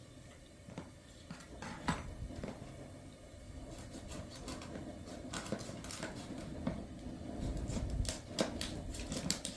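Kitchen clatter: dishes and utensils being handled, a string of sharp clicks and knocks that gets busier from about four seconds in, with a dull low thud near the end.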